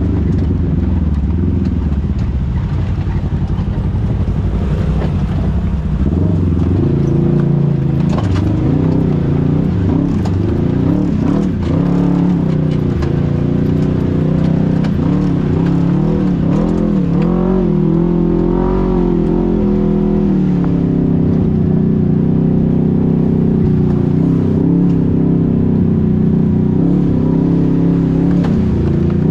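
An engine running steadily. About six seconds in its note steps up and gets louder, then rises and falls repeatedly in the middle as the revs change.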